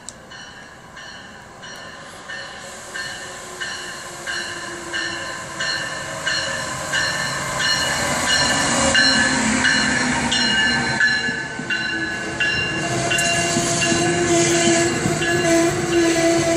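Amtrak ACS-64 electric locomotive arriving at a station, its bell ringing about one and a half times a second and growing louder as it approaches. Its passenger cars then roll past, with a steady low whine as the train slows.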